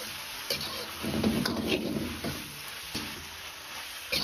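Metal spatula scraping and turning a full wok of stir-fry, with strokes about once a second, over a light sizzle of the food frying on medium-low heat.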